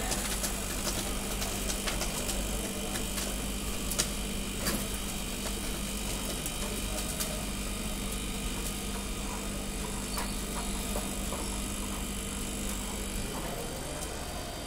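Electric cotton candy machine running: a steady motor hum from the spinning head as floss is spun, with a few sharp clicks. The hum's steady tone stops about a second before the end.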